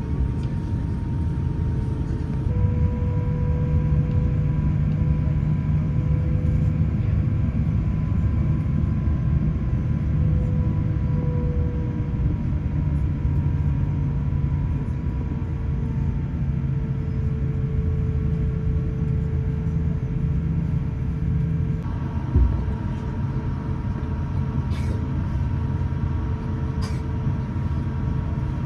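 Airbus A350 engine noise heard inside the cabin: a steady low rumble with a high engine whine that steps up in pitch a few seconds in and then slowly sinks.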